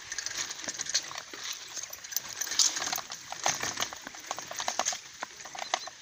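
Irregular rustling and crackling as a person on foot pushes a bicycle through tall dry grass and weeds.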